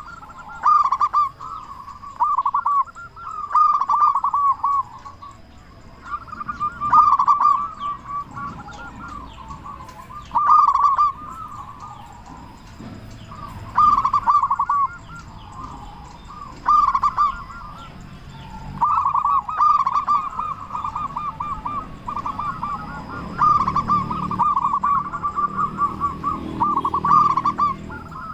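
Zebra dove (perkutut) cooing: short bursts of quick staccato coos repeated every few seconds, running into longer near-continuous phrases in the last third.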